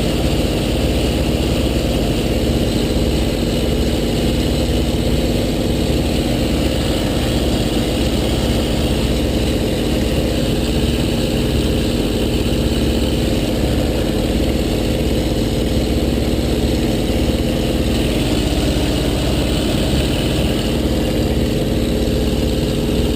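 Electric motor and propeller of a small RC P-51 model plane running at a steady cruise setting, a constant drone over rough wind noise.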